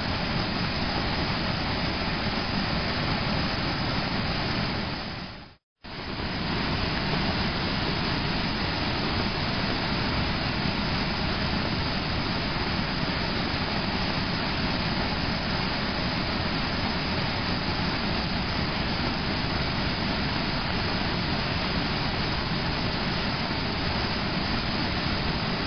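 Lucifer Falls in flood, muddy flood water roaring down the gorge: a steady, dense rush of falling water. It breaks off for a split second about six seconds in, then carries on unchanged.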